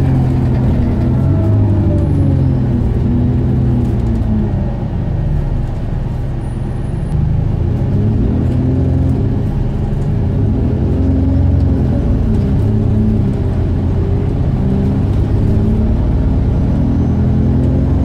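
Alexander Dennis Enviro400 double-decker bus heard from the lower deck while driving. The engine drone repeatedly rises in pitch and then drops back as the bus pulls away and changes gear, over a steady low rumble. It carries an odd noise that the rider cannot explain.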